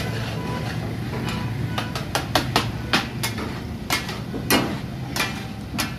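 Two steel spatulas clanking and chopping on a large iron tawa griddle, the taka-tak of brain masala (maghaz) being cut up on the hot plate. The strikes are sharp and irregular, in quick runs of several a second around the middle.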